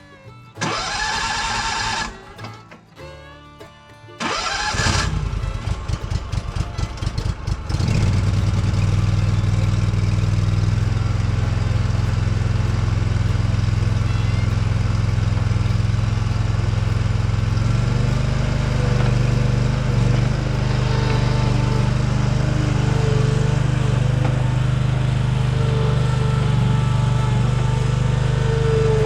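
Small construction machine's engine cranked on its starter in two goes. It stutters, catches about eight seconds in, then runs steadily.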